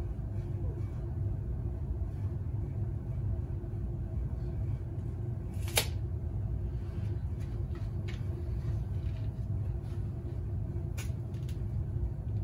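Steady low machine rumble in a workshop, with one sharp snap about six seconds in as a tape measure blade retracts, and a couple of lighter clicks near the end.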